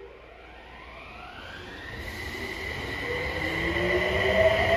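Toei 6300-series subway train pulling away from the platform. Its electric traction drive whines, rising in pitch for about two seconds and then holding steady, while wheel and running noise grows louder as the cars start to pass.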